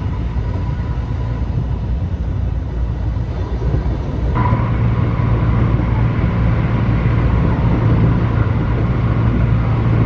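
Inside a moving train carriage: the steady low rumble of the train running, growing louder about four seconds in, with a faint whine joining it.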